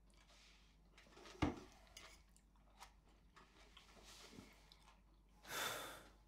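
Quiet meal sounds: small clicks of cutlery on plates and faint eating, with one sharper knock about a second and a half in, likely a glass set down on the wooden table. A brief breathy hiss comes near the end.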